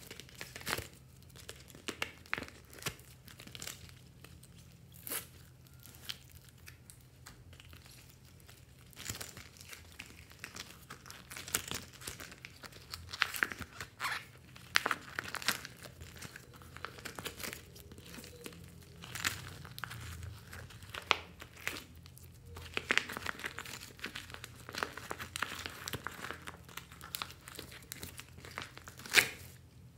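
Clear plastic slime pouches crinkling and crackling as they are handled and squeezed, with irregular sharp crackles that come thicker in stretches.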